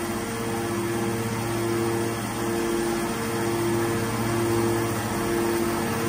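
Hydraulic power unit of a Y81-250R scrap metal baler running while the main cylinder retracts: a steady motor-and-pump hum with a mid-pitched whine that pulses in an even rhythm.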